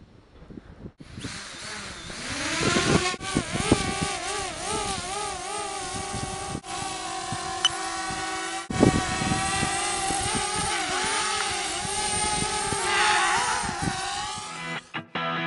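DJI Spark quadcopter's propellers whining, rising in pitch as the motors spin up about two seconds in, then wavering as the drone hovers and manoeuvres. Wind buffets the microphone.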